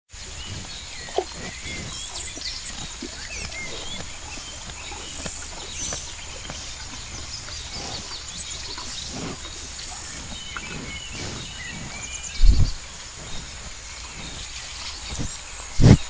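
Birds chirping in scattered short calls over a steady outdoor background, with soft rustles and one loud low thump about twelve seconds in.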